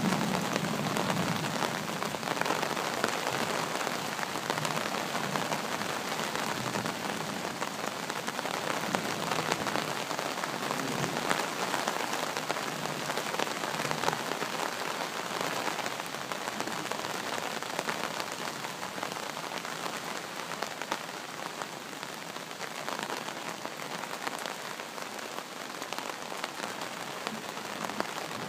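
Steady rain falling in a thunderstorm, with the tail of a low thunder rumble dying away in the first second or two. The rain eases slightly over the stretch.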